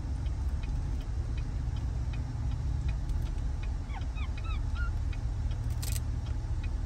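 Steady low road rumble inside a moving car, with faint regular ticking and a few short high chirps about four seconds in.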